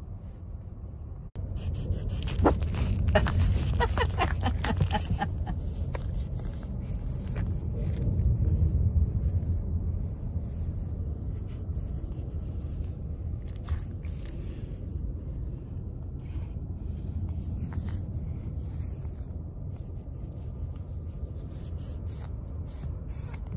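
Low, steady rumble of a car driving, heard inside the cabin. Scraping and rubbing noises close to the microphone come about two to five seconds in and a few times later.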